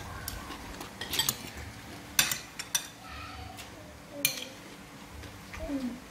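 Metal spoons clinking and scraping against ceramic plates and a soup bowl, with a few separate sharp clinks, the loudest about two seconds in.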